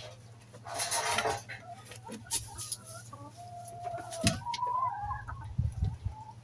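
Hens clucking in a straw-littered coop, with a short drawn-out, wavering call in the middle. A rustle about a second in and scattered light taps come from the birds moving on the straw.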